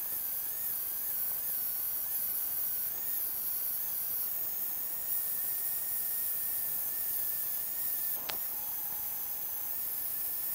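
A small power-tool motor running with a steady hiss and a thin, high whine whose pitch wavers slightly, with one short click about eight seconds in.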